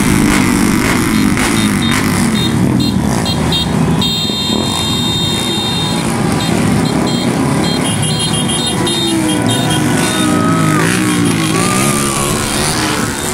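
Engines of a pack of motorcycles and scooters running and revving, the pitch rising and falling toward the end, with repeated short high-pitched beeps and one longer held high tone about four seconds in.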